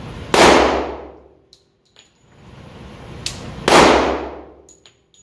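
Two shots from a Glock 40 MOS, a 10mm pistol with a 6-inch barrel, about three and a half seconds apart, each with a sharp report that echoes off the range booth for about a second. A shorter, thinner crack comes just before the second shot, and small clicks fall between them.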